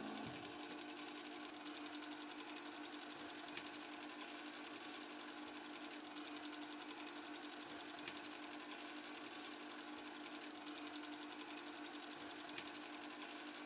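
Film projector running: a rapid, even clatter of the film mechanism over a steady hum.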